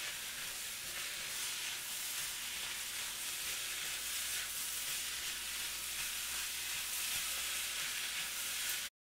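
Pork fried rice with peas and carrots sizzling in a hot pan while it is stirred with a silicone spatula; the steady sizzle stops abruptly near the end.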